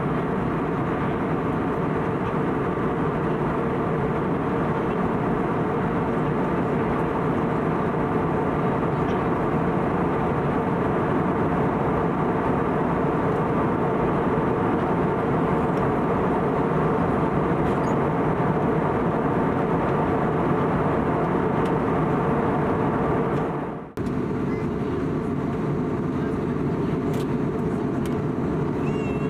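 Steady cabin noise of an Airbus A320neo with CFM LEAP-1A engines in flight: an even rush of airflow and engine sound with a few faint steady hum tones. Near the end it cuts out for a moment and comes straight back.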